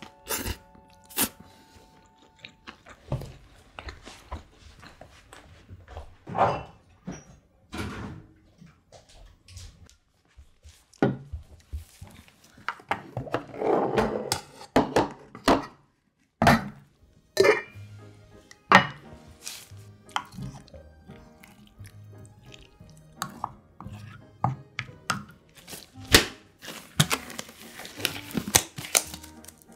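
Eating and tableware sounds: a metal spoon clinking and scraping on bowls and dishes knocking on a wooden table, in a string of separate sharp clicks and knocks. Near the end a plastic glove is pulled off.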